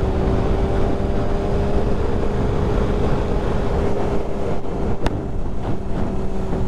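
A 1996 Yamaha YZF600R's inline-four engine pulls at a steady, near-constant pitch while riding, with a heavy low rush beneath it. A single sharp click sounds about five seconds in.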